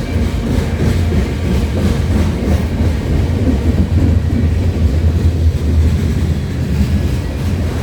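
Railway train rolling past on the track: a steady low rumble of wheels on the rails, with some clatter.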